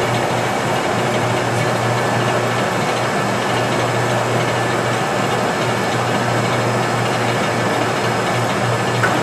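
Geminis GE 1200-5-3G heavy-duty engine lathe running with its 4-jaw chuck turning slowly: a steady hum and whir from the 50 HP electric main drive and headstock. A brief click near the end.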